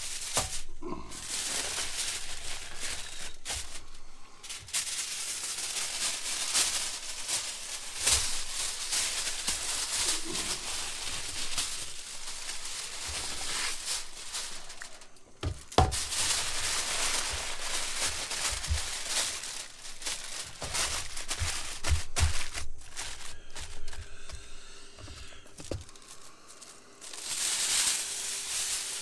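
Heavy-duty aluminum foil crinkling and crumpling as it is folded and pressed around a rack of smoked meat, with a few sharp knocks. Near the end, a brief louder rustle as foil is pulled off the roll.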